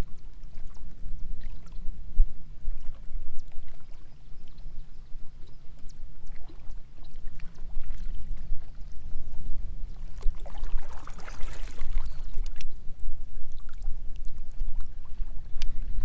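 Water lapping and trickling against a pedal kayak's hull, over a steady low rumble of wind on the microphone. About two-thirds of the way through there is a brief rush of splashing water.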